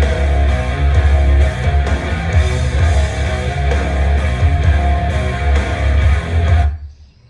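Homemade car-audio speaker tower, built from a car stereo head unit, two JBL mid-range speakers and a JBL subwoofer, playing a rock song with electric guitar and heavy bass, picked up by a microphone in front of it. The music cuts off suddenly near the end.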